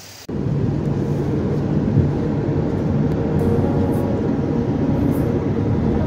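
A car on the move: steady engine and road rumble. It cuts in suddenly about a quarter second in, replacing a soft rushing of water.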